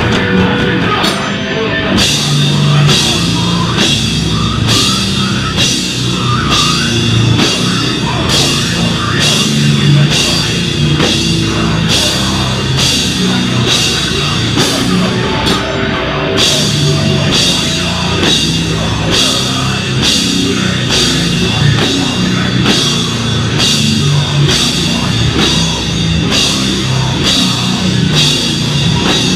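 A live beatdown hardcore band playing loud, heavy music: distorted guitar and bass over drums, with cymbal hits on a steady beat. The full band comes in about two seconds in.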